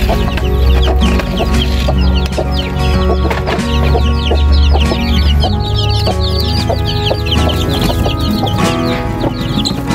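A group of young chicks peeping continuously, many short falling chirps overlapping, over background music with a steady bass.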